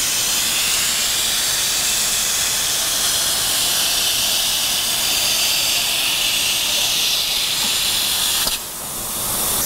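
Miller Weldmaster 112 Extreme seam welder running a weld: a steady, loud hiss of air from the head carriage as it travels along the acrylic seam, welding tape down. The hiss cuts off suddenly near the end.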